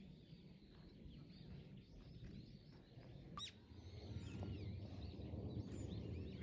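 Small birds chirping faintly in snow-covered persimmon trees, many short scattered calls with one sharper call about halfway through. A low rumble underneath grows louder from about four seconds in.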